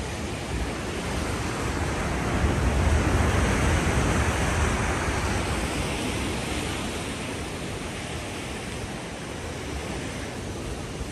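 Sea surf washing against a rocky lava shoreline, swelling about two seconds in and easing off after about five seconds, with wind rumbling on the microphone.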